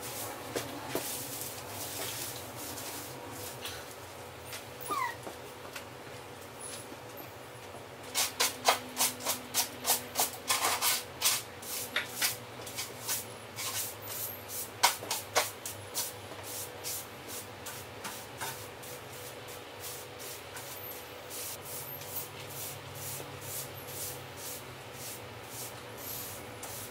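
Broom sweeping pine needles and twig debris across a hard floor: a run of quick brushing strokes, about two to three a second, loudest through the middle of the stretch, then lighter, more spaced strokes. A short high whine sounds about five seconds in.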